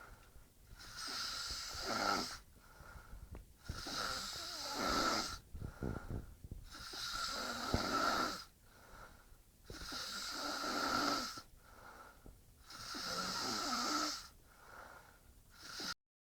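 Loud, wheezy snoring: a long raspy breath with a whistling tone about every three seconds, with quieter gaps between. It cuts off suddenly near the end.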